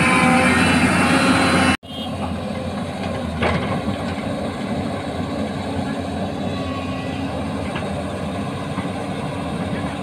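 Diesel engine and hydraulics of a Hyundai 215L crawler excavator running under load as it digs and swings its bucket. The sound breaks off abruptly about two seconds in and resumes a little quieter and steady.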